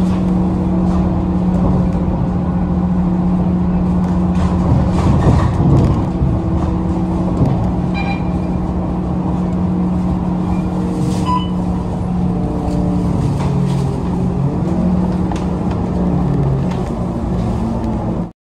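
Scania K230UB Euro V city bus's diesel engine heard from inside the cabin, running steadily under way with a constant drone. Near the end the engine note changes as the bus slows for a stop.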